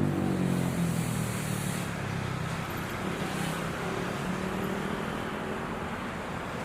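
Diesel locomotive engine drone, loud at first and fading over the first two seconds as it moves away, leaving a steadier, quieter rumble of the passing train.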